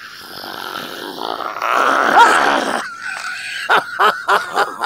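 A man laughing hard: a long rasping, wheezy stretch that builds to its loudest about two seconds in, then a run of short 'ha' bursts, about four a second, near the end.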